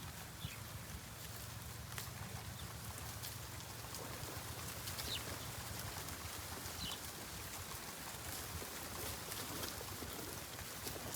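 Steady outdoor background noise with a few faint, short high chirps of a small bird, about half a second, five seconds and seven seconds in.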